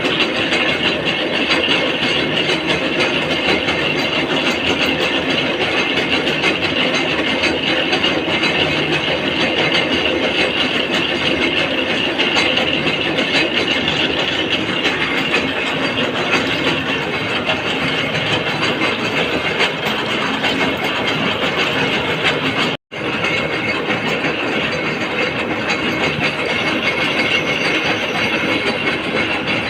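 Gear cutting machine running and cutting teeth into a steel gear blank, a steady mechanical clatter and grinding. The sound drops out for an instant about three-quarters of the way through.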